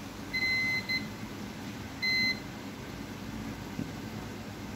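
Multimeter continuity beeper sounding as the probes touch across line L2 on a circuit board: a half-second beep about a third of a second in, a short blip just after, and another beep about two seconds in. The beeps show that the line has continuity and is not open.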